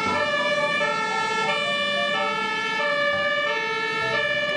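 Airport fire truck's two-tone emergency siren, alternating steadily between a low and a high note.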